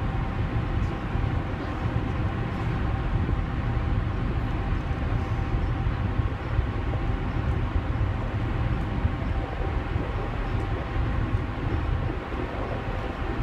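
Steady low rumble of a ferry under way, heard from its open deck: engine and machinery noise with a constant hum, and wind buffeting the microphone.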